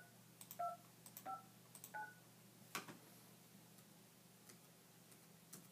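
Phone dialer keypad tones (DTMF) from a Samsung Galaxy Note 2's dial pad: four short, quiet two-tone beeps in the first two seconds as digits are entered, then a couple of faint clicks.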